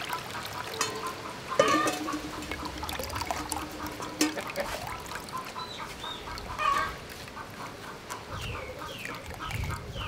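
Chickens clucking, with a few short falling chirps near the end.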